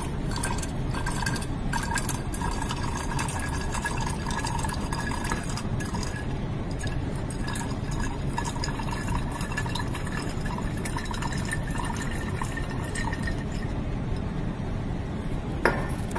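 Liquid sloshing in a glass conical flask as it is handled and swirled, over steady background noise, with one sharp glass clink near the end.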